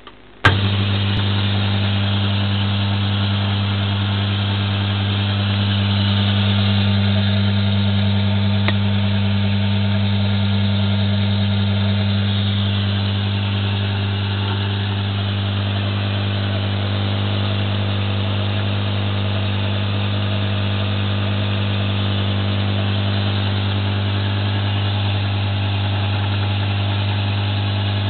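Homemade 72-inch belt sander, its motor fed through a cheap speed controller and bridge rectifier, switched on about half a second in and then running steadily with a strong low hum.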